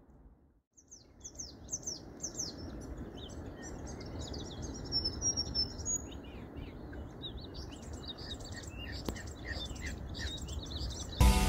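A chorus of small birds: many short, high chirps and calls overlapping continuously, over a steady low background noise. Music comes in just before the end.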